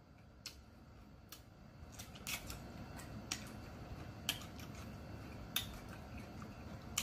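A person chewing a mouthful of salad close to the microphone: faint, with scattered crisp mouth clicks and crunches about a second apart.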